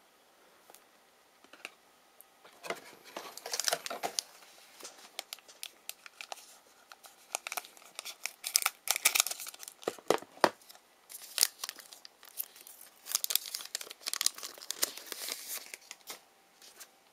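A sealed trading-card pack wrapper being torn open and crinkled by hand: irregular tearing and crackling starting about two and a half seconds in, loudest around the middle and again near the end.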